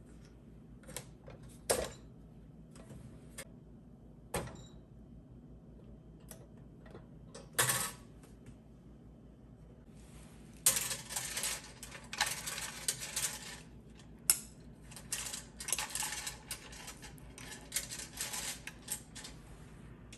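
A few separate clicks and knocks of a wooden candle lantern's metal latch and lid being handled, then several seconds of dense clattering as a string of wooden beads is draped around the lantern.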